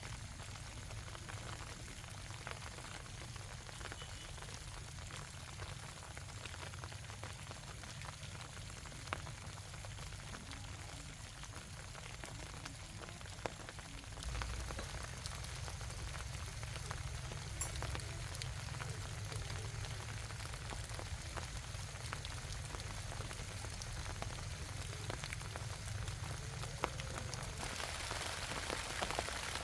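Rain falling, an even hiss with scattered drops. It grows a little louder about halfway through.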